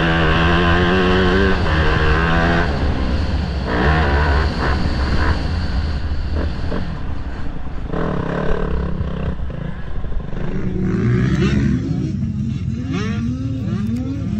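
Motocross bike engine heard onboard while riding a dirt track: it holds steady high revs for the first couple of seconds, then the throttle is shut and reopened several times. In the last few seconds the revs rise and fall quickly, over and over.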